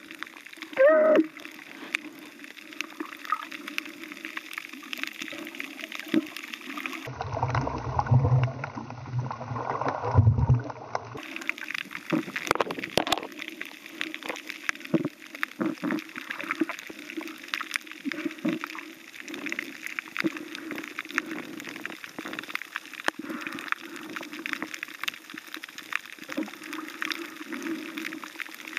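Muffled underwater sound picked up by a snorkeler's camera: water noise with scattered clicks and crackles, and a few short rising pitched sounds near the start. About seven seconds in a deep low rumble comes in for around four seconds.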